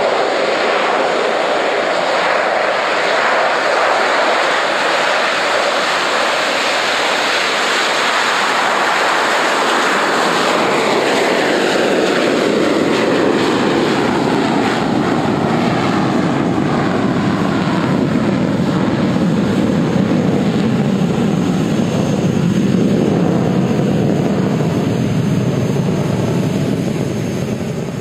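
Boeing 727's three Pratt & Whitney JT8D turbofans at takeoff power as the jet rolls and climbs out: loud, dense jet noise with a whine that slides steadily down in pitch as the plane passes, the sound growing deeper, then fading out near the end.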